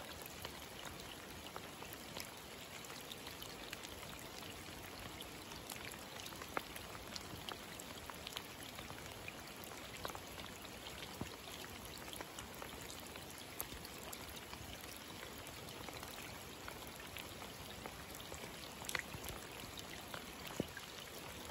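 Steady rain falling on a wide puddle covering a road: a dense, even patter of drops hitting the water, with a few sharper single drops standing out now and then.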